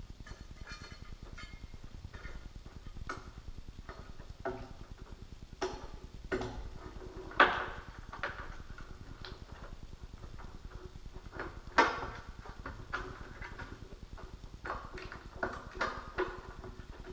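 Scattered metallic clicks and knocks of a solid steel flying bracket being handled and fitted against a loudspeaker cabinet, with two louder knocks about seven and twelve seconds in.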